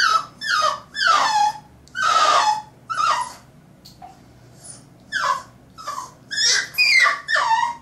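Three-month-old French Bulldog puppy whining and crying in a run of short, high cries, each sliding down in pitch, with a pause of a second or so midway. It is protesting at being left in the bath.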